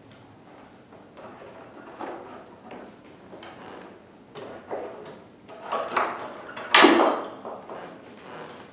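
An upholstered Pilates reformer carriage pad being worked loose and lifted off the carriage: a run of knocks, scrapes and rustles, with the loudest knocks about six and seven seconds in.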